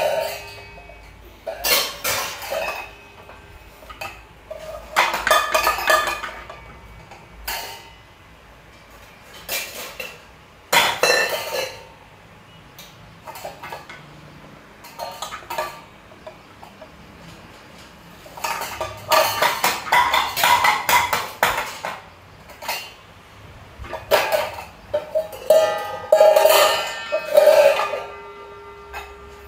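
Stainless steel pots, bowls and plates clanking and clinking as a baby handles them and knocks them together. The clanks come in irregular bursts every second or few, some with a short metallic ring, and are busiest in the second half.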